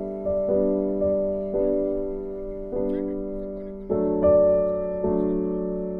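Slow background piano music: single notes and chords struck about once a second, each left to fade.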